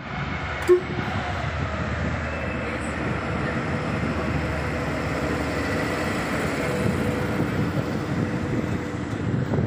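Diesel freight locomotive passing close by with its engine running, followed by the rumble of tank wagons rolling along the rails. One sharp knock less than a second in.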